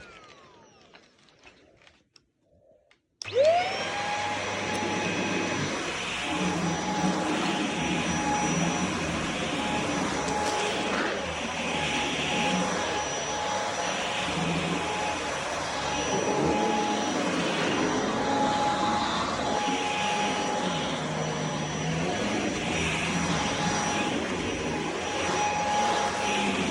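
Shark stick vacuum cleaner motor winding down and fading out in the first second. It is switched back on about three seconds in, whining up to speed, then runs steadily with a constant high whine.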